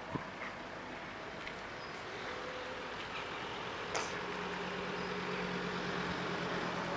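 A motor vehicle's engine running and slowly growing louder, with a steady low hum setting in about halfway through and a single sharp click about four seconds in.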